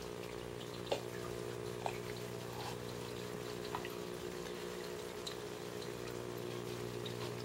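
Aquarium circulation pumps running with a steady electrical hum, water moving and trickling in the tank, and a few faint clicks.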